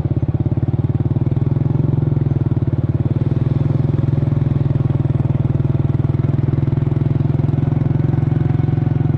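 Scooter engine idling steadily with a fast, even putter.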